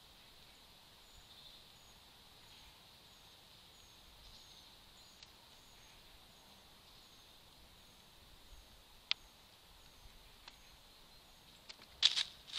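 Red squirrel bounding off a water tray across dry leaf litter: two loud, short rustling scuffs near the end. Before that there is only faint outdoor hiss with a soft high chirp repeating a little more than once a second.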